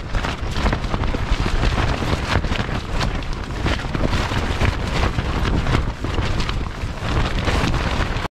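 Strong wind buffeting a tent and the microphone: a loud, constant rushing rumble with rapid crackles of the fabric. It cuts off suddenly at the very end.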